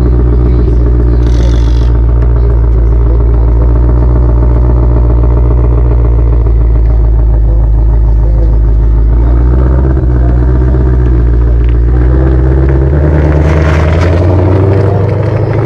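Ford Mustang Shelby GT500's 5.2-litre supercharged V8 running steadily with a deep exhaust rumble, with a brief hiss about a second and a half in and again near the end.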